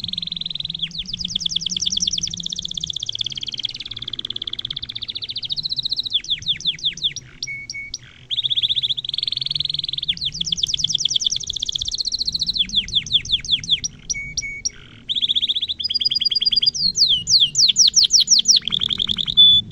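Domestic canary singing a long, near-continuous song of very fast rolling trills and runs of sharp, sweeping notes. It breaks off briefly about 8 and 15 seconds in, and the loudest notes come near the end.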